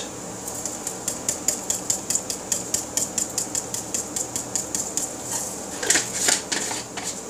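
Dried chives being shaken from a plastic spice shaker over a mixing bowl: a rapid, even run of light ticks, about four or five a second, with a couple of heavier rattles about six seconds in.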